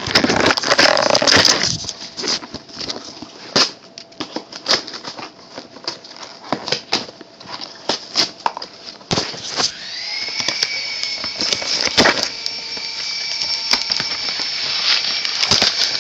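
Hands opening a shipping package: cardboard and plastic wrapping crackling and clicking, with a tearing sound in the first couple of seconds. From about ten seconds in a steady high-pitched whine sounds under the handling.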